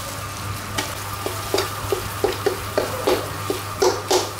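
Metal spoon and ladle clinking and scraping against a large aluminium pot as a spice paste is stirred into the bubbling liquid inside. The knocks come irregularly, a few a second, and are loudest near the end.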